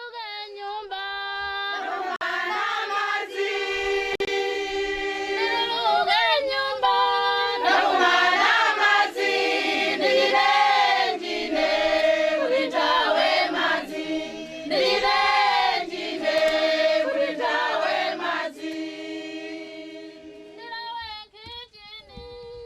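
A group of voices singing together, with female voices prominent, building up over the first few seconds and fading out near the end.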